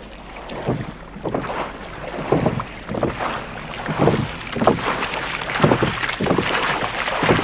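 Water sloshing and lapping in irregular surges, about one a second, over a steady rushing noise.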